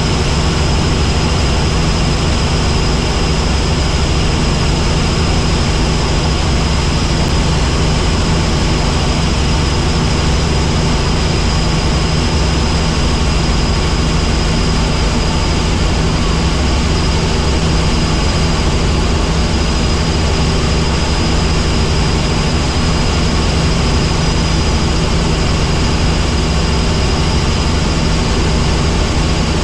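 Helicopter in flight: a steady, loud drone of engine and rotors, a low hum with a thin high whine above it.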